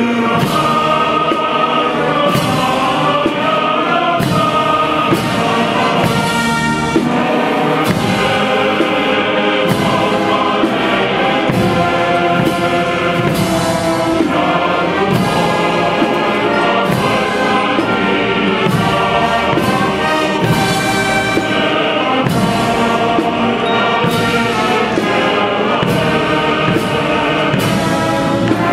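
Massed military brass bands playing together in full ensemble, with a steady drum beat underneath.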